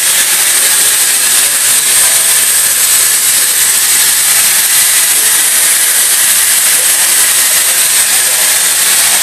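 Steady, loud hiss with a faint low hum beneath: the running noise of a Mori Seiki NT3200 DCG multi-tasking CNC turning-milling center.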